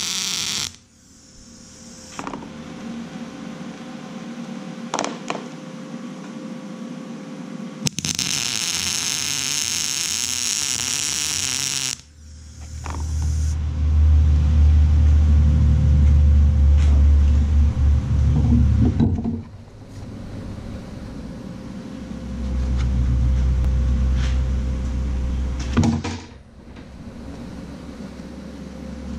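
MIG welder arc crackling and sizzling as a steel pin is tacked: a short burst right at the start, then a steady weld about four seconds long. Loud low rumbles fill several seconds in the middle and again near the end.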